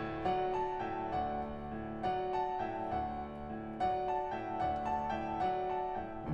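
Orchestral music: a lighter passage of short, separately struck pitched notes, about three a second.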